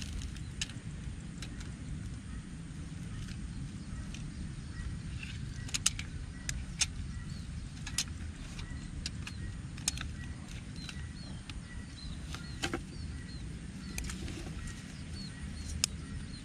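Sharp clicks and taps every second or two from a rattan snare loop and a tape measure being handled, over a low steady rumble. Faint short bird chirps come in the middle.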